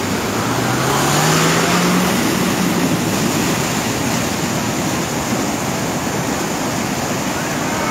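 Muddy floodwater rushing in a steady, loud torrent. A low hum rises slightly in pitch during the first couple of seconds.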